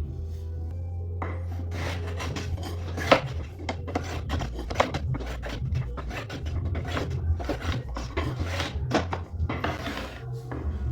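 A hand rasp or file being worked over a sonokeling (Indian rosewood) saw handle, shaping the wood in a series of irregular rasping strokes.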